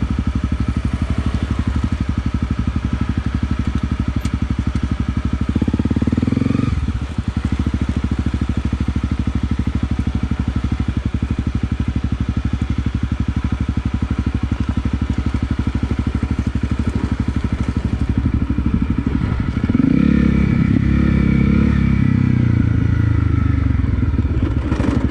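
Single-cylinder engine of a Honda CRF250 Rally dual-sport motorcycle running at low revs, its firing pulses steady, with a brief rise in revs about six seconds in and another stretch of higher revs around twenty seconds in.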